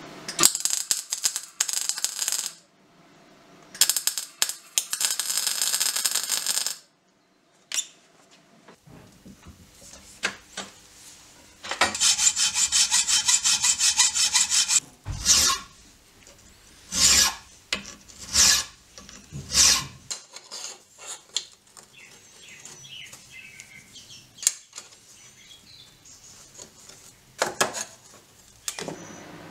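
Hand tools working steel: rapid rasping strokes of a file on the lock plate in two bursts over the first seven seconds, then a hacksaw cutting steel in a vise, with a run of fast strokes followed by a few separate strokes.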